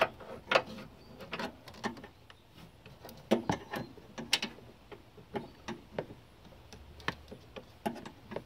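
Irregular clicks, taps and snaps of a screwdriver and plastic wiring-harness clips being pried and worked loose in a truck's engine bay, a little louder about three and four seconds in.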